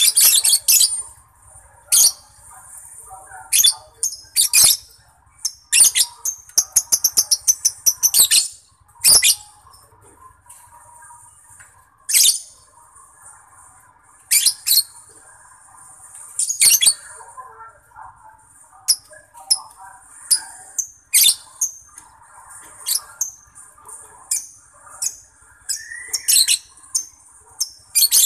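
Lovebird singing: a string of sharp, very high-pitched chirps and squeaks over softer chattering, with a fast rattling trill about six seconds in.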